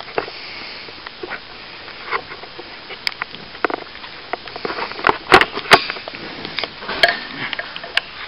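A steel plastering tool scraping and tapping while cornice cement is worked over a ceiling join: irregular clicks and short scrapes, with the sharpest clicks about five seconds in.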